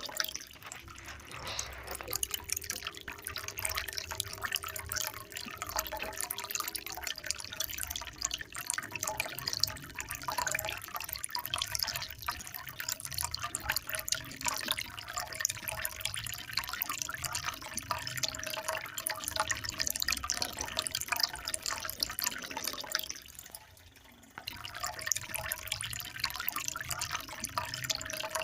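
Water trickling and splashing steadily, with many small drips. It dips almost away for about a second near the end.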